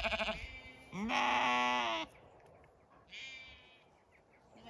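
Zwartbles lambs bleating as they wait to be fed: one long, loud bleat about a second in, a shorter, fainter one about three seconds in, and another starting right at the end.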